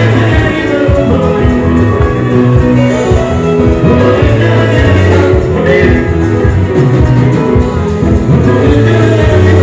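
Loud live band music with singing, a heavy, steady bass line and a regular drum beat.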